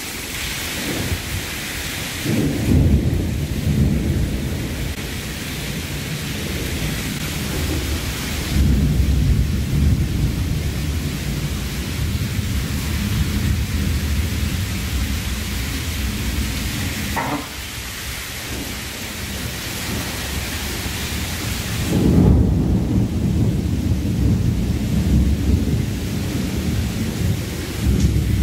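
Heavy rain pouring steadily, with low rolls of thunder rumbling in several times: a couple of seconds in, again about eight seconds in, and again about twenty-two seconds in.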